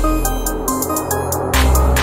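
Electronic background music with a deep, sustained bass line. A noisy swell fills the first second and a half, then the heavy bass comes back.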